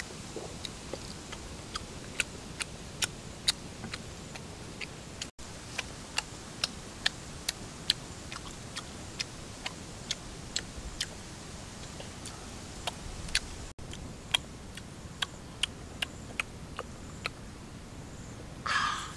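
A person chewing and eating chicken heart: sharp, irregular wet mouth clicks and smacks, a few a second. Near the end comes a brief louder slurp.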